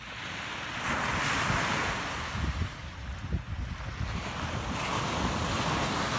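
Ocean surf washing onto the beach, a steady rushing of small breaking waves that swells about a second in, with wind buffeting the microphone.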